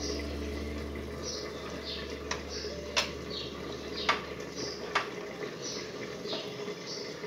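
Wooden spatula knocking against the side of a metal cooking pot while stirring rice and dal in water, four sharp knocks between about two and five seconds in. Short high chirps repeat in the background throughout.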